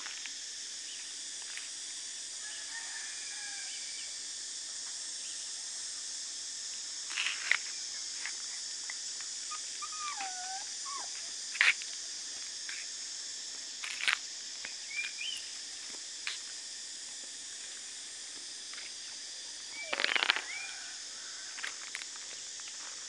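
Outdoor yard ambience: a steady high hiss with a few short bird chirps, broken by several sharp taps and rustles, the loudest near the middle and again near the end.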